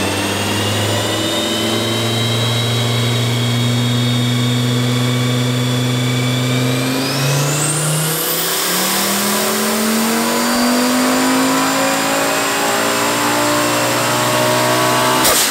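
Turbocharged VW 07K 2.5-litre inline five-cylinder (Garrett G25-660 turbo) on a chassis dyno pull at about 20 psi boost: the engine note climbs slowly in pitch, a high turbo whistle rises steeply about halfway through, and then the revs climb steadily under full load.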